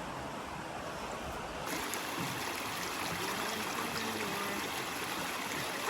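Steady rushing of flowing river water. The sound grows brighter and hissier about two seconds in.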